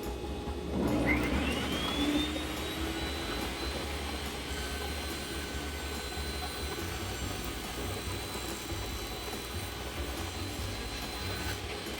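Table saw motor starting about a second in and spinning up with a rising whine, then running steadily, over the steady low hum of a running dust collector.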